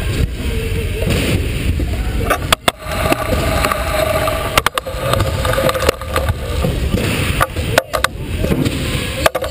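Stunt scooter wheels rolling over wooden skatepark ramps, a continuous rumble broken by a few sharp knocks.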